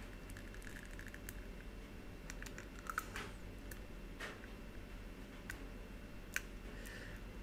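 Faint, irregular light clicks and taps, with quick clusters about a second in and again around three seconds in, and single clicks scattered between.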